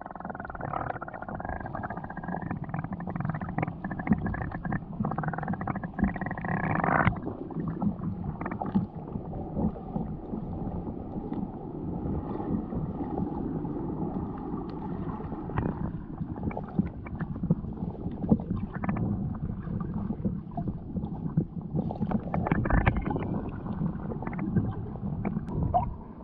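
Muffled underwater sound from a camera held below the surface in a surging rock pool: a low, steady rush of moving water with scattered crackles and knocks.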